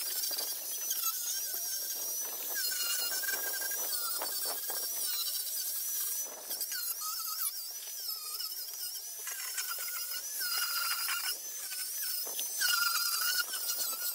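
Handheld angle grinder fitted with a sanding disc, whining as it sands down the sharp corners of the wooden bench boards. The whine wavers in pitch as the disc bears on the wood, with a few brief dips.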